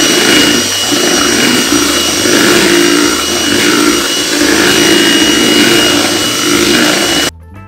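Electric hand mixer running at a steady speed, its twin beaters whipping stiff egg-white foam with sugar and vanilla in a glass bowl, a constant high whine over the motor. It cuts off suddenly near the end, and soft music follows.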